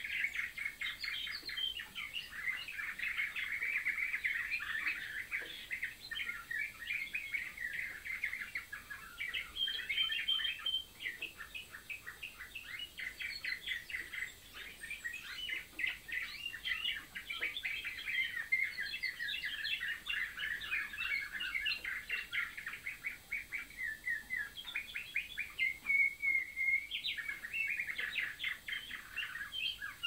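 Canary song: a continuous, rapid run of trills and chirps, with a short held whistle-like note near the end.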